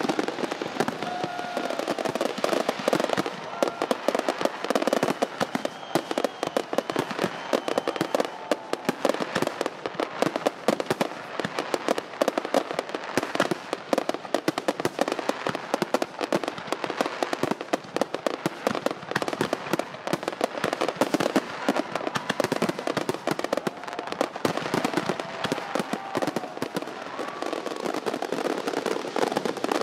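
Fireworks going off continuously: dense, rapid crackling and banging with no break.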